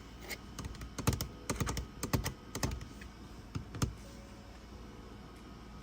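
Keys of a budget mechanical-style keyboard with a metal top being pressed in an uneven run of clacks, a keyboard sound test. The keystrokes stop about four seconds in.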